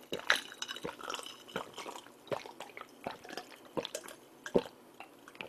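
Close-miked gulping of a drink from a glass mug: a steady run of wet swallows, about one every three-quarters of a second, with faint smaller clicks of the throat and lips between them.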